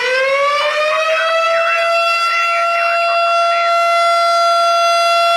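Federal Signal STH-10 air raid siren sounding a fire call. Its loud wail rises in pitch over the first two seconds, then holds a steady tone.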